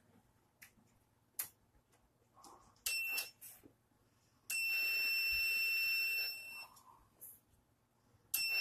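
A Snap Circuits Beginner circuit sounding a steady, high-pitched electronic beep tone that is switched on and off three times: briefly about three seconds in, for about two seconds from four and a half seconds, and again near the end. Before it come a few small clicks as the switches on the board are worked.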